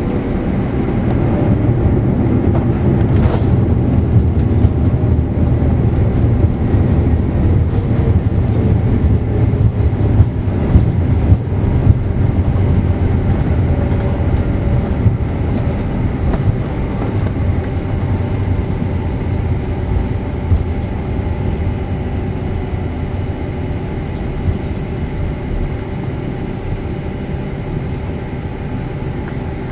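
Cabin noise of a Boeing 787-9 rolling out on the runway just after touchdown: a loud rumble of engines and wheels that swells over the first few seconds, holds, then slowly fades as the airliner slows down.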